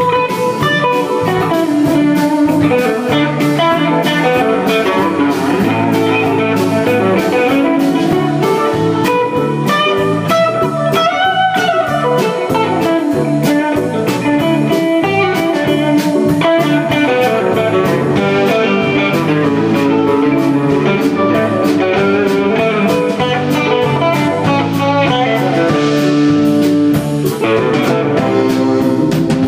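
Live rock band playing an instrumental passage, with electric guitars over keyboard, bass and drums; a guitar note bends up and back down about eleven seconds in.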